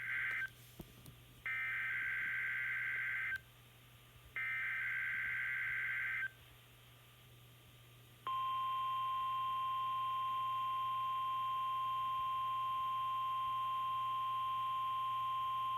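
NOAA Weather Radio Specific Area Message Encoding (SAME) header: the end of one data burst, then two more, each about two seconds long with about a second between them. After a two-second pause, the steady single-pitch 1050 Hz warning alarm tone starts about eight seconds in and holds. Together they make up the alert tones of a Required Weekly Test.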